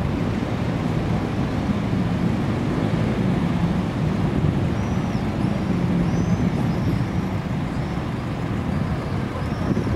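Steady low rumble of city traffic, with a few faint, short high chirps midway and again near the end.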